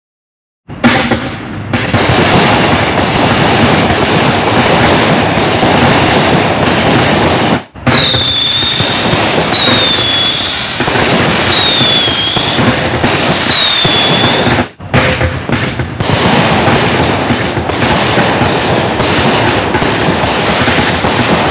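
Black Cat consumer firework cakes (500-gram and 200-gram) firing: a dense, continuous run of shots, bursts and crackle. In the middle come four short whistles about a second and a half apart. The sound breaks off sharply twice.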